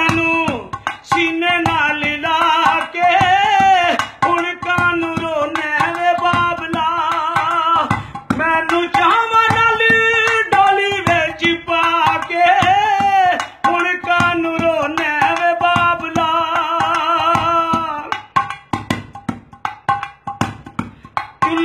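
Punjabi folk song: a singing voice with a wavering vibrato over a steady held drone note, with a hand-drum beat throughout.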